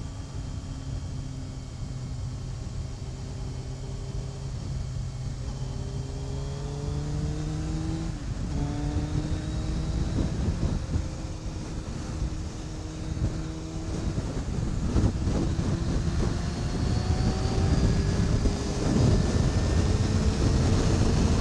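Yamaha YZF600R's inline-four engine accelerating onto the highway: its pitch climbs, drops back once about eight seconds in as it shifts up, then climbs again. Wind noise grows toward the end.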